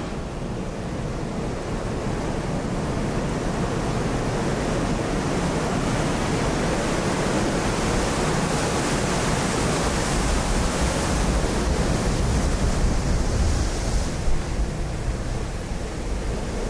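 Steady rushing noise of ocean surf breaking below the cliffs, mixed with wind.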